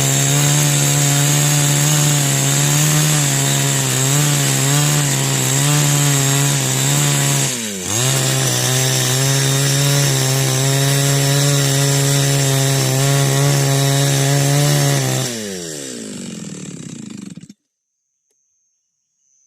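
Two-stroke 18-inch chainsaw running steadily at high speed, with a brief drop in revs about eight seconds in. About fifteen seconds in it slows with a falling pitch and then cuts off abruptly.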